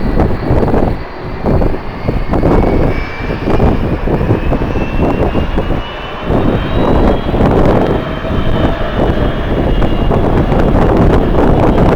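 Jet airliner engines whining, a thin tone slowly rising in pitch and then levelling off, under strong gusting wind buffeting the microphone.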